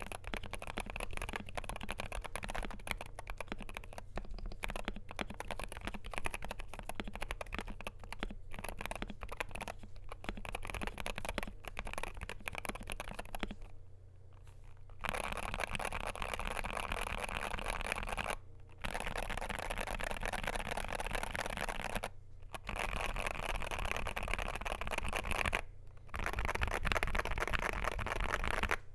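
Typing on a Wooting 60HE keyboard with Lekker L60 magnetic Hall-effect switches, stainless steel plate and OEM PBT doubleshot keycaps. Steady keystrokes for the first half, then four stretches of very fast, dense keystrokes a few seconds each, broken by short pauses.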